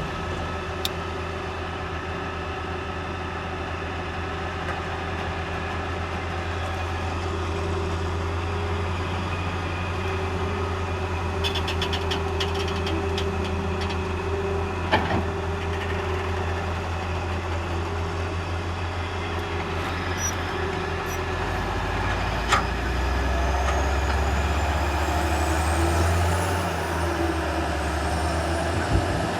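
Heavy diesel vehicle engine running steadily, its pitch and note changing about three-quarters of the way through, with a few sharp clicks.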